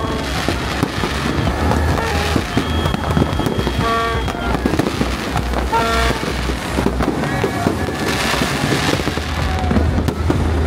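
Fireworks display: a continuous dense crackling of bursting shells and firecrackers over a steady low rumble.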